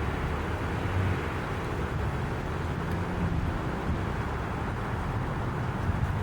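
Steady low outdoor rumble, with no siren tone.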